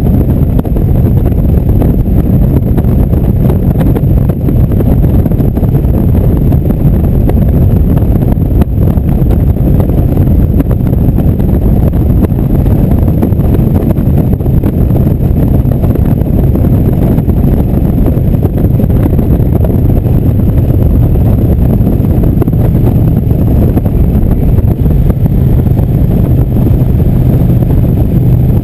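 Indian motorcycle's V-twin engine running steadily at cruising speed on the move, with wind rushing over the bike-mounted microphone.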